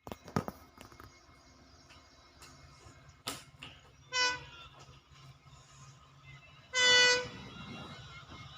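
A diesel locomotive's horn, from a WDP4D, sounds two blasts: a short toot about four seconds in, then a longer, louder one about three seconds later. A few sharp clicks come near the start, over a faint low rumble.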